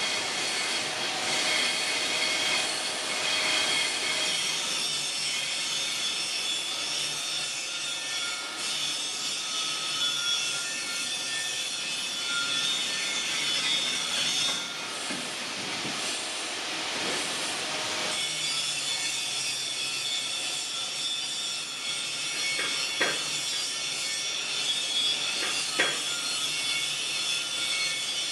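Continuous rasping of metal being worked by abrasion, with steady ringing overtones running through it; two sharp knocks near the end.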